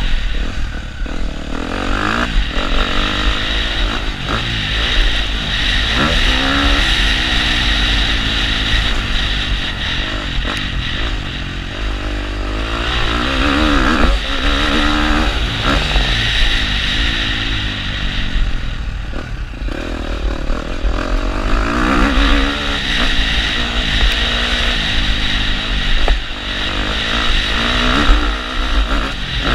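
KTM motocross bike engine under hard riding, its pitch revving up and dropping back again and again as the rider accelerates and eases off.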